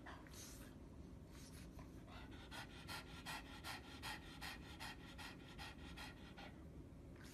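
A pug panting, faint and quick, about four breaths a second, stopping about six and a half seconds in.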